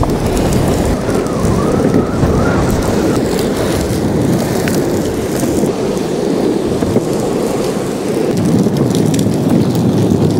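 Wind buffeting the microphone in a strong wind, a loud steady rumble, over the rolling of an electric skateboard's wheels on the road.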